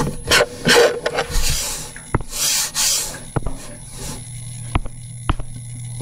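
Rubbing and rustling noises close to the microphone in the first half, then four sharp separate clicks, over a low steady hum.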